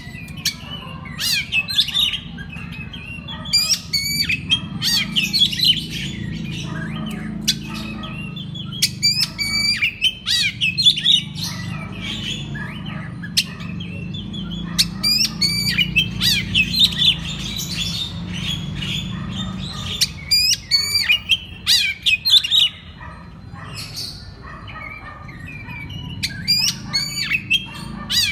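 Oriental magpie-robin (kacer) singing a varied song of quick whistled and chattering phrases in repeated bursts, over a steady low hum.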